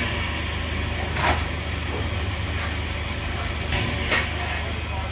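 Small 0-6-0 side-tank steam locomotive standing with steam hissing steadily around its cylinders, broken by several short, sharper bursts of hiss, the loudest just over a second in and about four seconds in.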